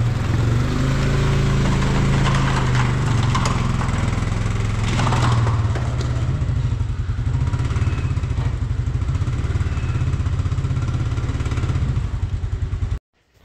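A Can-Am Outlander 700 XMR ATV on rubber tracks runs steadily as it climbs aluminium loading ramps into a pickup bed, with some clatter from the tracks on the ramps a few seconds in. The engine sound cuts off suddenly near the end.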